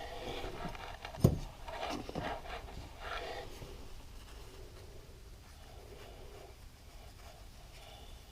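Light handling noises of engine clutch parts being fitted, with one sharp knock a little over a second in, then little more than faint background.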